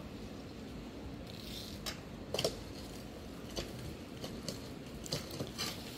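A few short, light scrapes and clicks, the loudest about two and a half seconds in, over a faint outdoor background: a worker scraping at the packed-soil wall of an excavated pit and shifting his feet on loose dirt.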